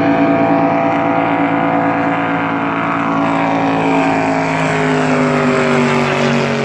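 A speedboat's engine running at full throttle, a loud steady note that glides down in pitch from about four seconds in.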